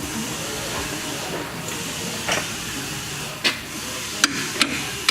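A few sharp hammer taps on metal, coming closer together near the end, as a new front strut assembly is tapped into place, over a steady hiss of shop background noise.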